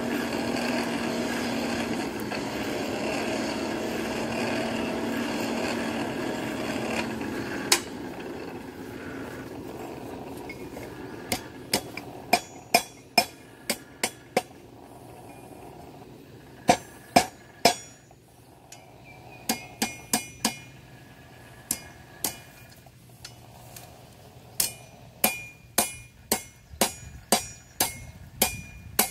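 Blacksmith's hammer striking hot iron on an anvil with a ringing clang, in runs of several blows with short pauses between. For the first seven seconds or so a steady motor drone runs and then fades away.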